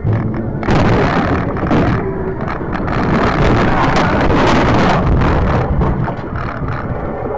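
A car ploughing off the road through deep snow into bushes, heard from inside the cabin: a loud rushing noise of snow spraying over the windshield and body, with many knocks and thuds. It grows louder about a second in and eases near the end.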